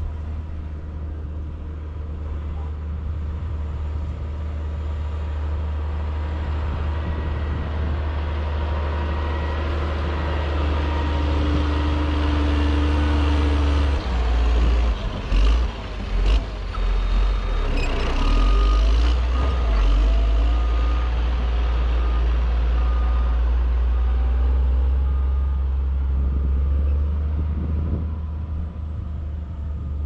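Caterpillar 120H motor grader's diesel engine running steadily under load. About halfway through the engine note drops and there are a few clicks, then the reversing alarm beeps in a regular series for several seconds as the machine backs up.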